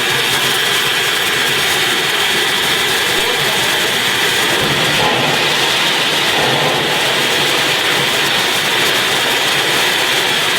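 Steam locomotive giving off a loud, steady hiss of escaping steam, with no clear beat.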